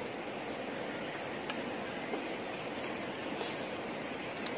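Insects droning steadily at a high pitch over a constant rushing background noise, with a few faint clicks.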